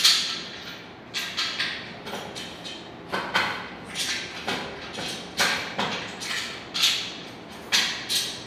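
Sofa parts being handled during assembly: irregular knocks and scrapes, roughly one or two a second, each fading quickly.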